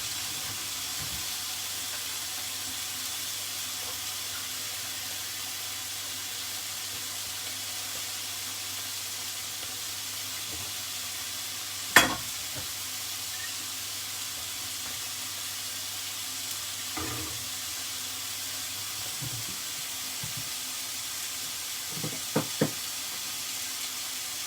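Chicken breasts searing in oil in a frying pan over high heat, giving a steady sizzle. A single sharp knock comes about halfway through, and a few lighter knocks come near the end.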